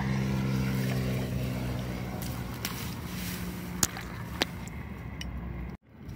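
An engine running steadily at a low pitch fades away over the first two seconds. After it comes background hiss with two sharp clicks, and the sound briefly cuts out near the end.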